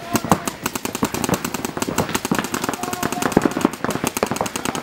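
Paintball markers firing in rapid strings of more than ten shots a second, with several guns going at once in a continuous volley of sharp pops.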